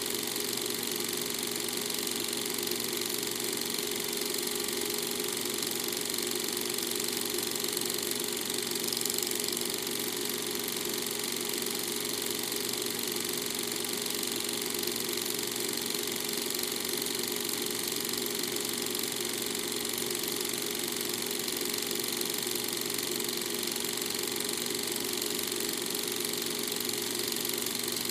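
A steady, unchanging machine-like drone made of several held tones over a hiss, with no break or change in level.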